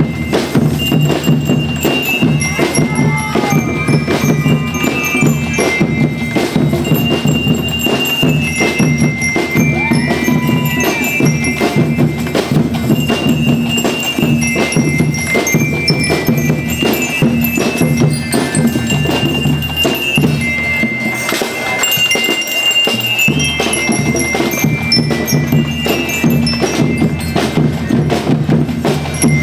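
A school rhythm band playing, with bell lyres ringing out the melody over drums and other percussion.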